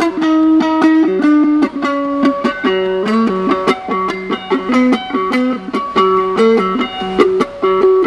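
Acoustic guitar played one note at a time on a single string with a tapping technique, each note sharply struck. Repeated notes give way, about two and a half seconds in, to a fast back-and-forth between a low and a high note.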